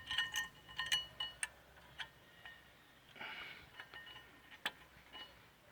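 Light metallic clicks and clinks of small steel brake parts, the caliper bracket's anti-rattle spring clips and plates, being pressed and seated so they sit tight without play. A quick run of sharp clicks, each ringing briefly, with more scattered clinks about three to five seconds in.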